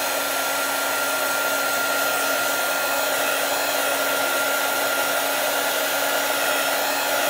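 Hair dryer running steadily, with an even rush of air and a constant motor whine, drying freshly applied chalk paste on a transfer.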